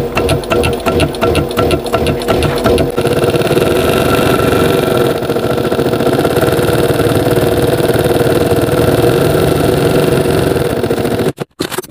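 Industrial sewing machine stitching through leather and its leather lining. It begins at a slower, stroke-by-stroke rhythm, then about three seconds in speeds up to a steady fast run, and stops shortly before the end.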